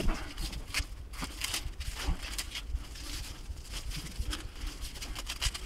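Rustling and small irregular crackles and clicks from a mesh bug net and an adhesive Velcro strip being handled and pressed into place.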